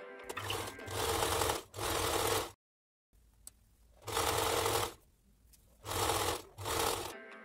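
Domestic electric sewing machine stitching a seam in about five short runs, its motor and needle stopping and starting between them.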